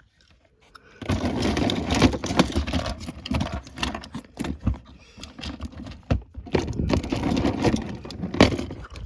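Hands rummaging through a bin of small plastic fidget toys, the toys clattering and rustling against each other without a break from about a second in.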